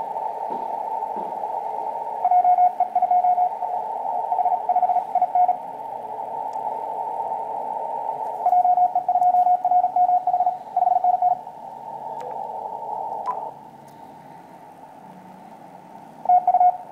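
Morse code (CW) signal received on an Icom IC-7000 transceiver on the 15 m band: one steady tone keyed in two long runs of dots and dashes and a short burst near the end, over hiss squeezed into a narrow CW filter. The hiss drops sharply about three-quarters of the way through.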